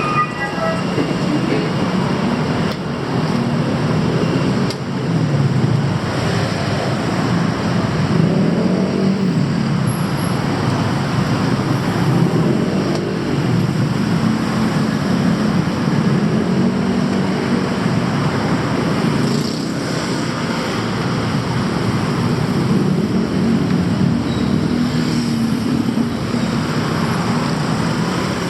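Heavy city road traffic: a steady wash of vehicle engines and tyres, with engine pitch rising and falling as cars and buses move past.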